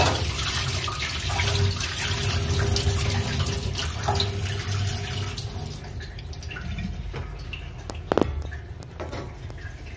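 Tap water running into a sink as dog bowls are washed by hand, the flow easing off about halfway through. A few light clinks and a short squeak follow near the end.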